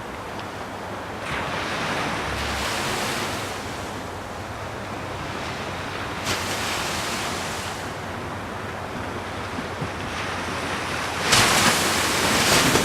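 Ocean surf: waves breaking and washing in over a steady hiss, swelling a few times, with the loudest crash near the end.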